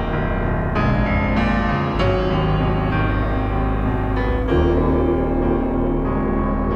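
Background piano music, notes struck every second or so over sustained chords.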